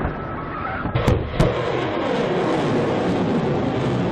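Steady rushing roar of a Kalibr cruise missile's rocket booster launching from a warship, with two sharp clicks about a second in.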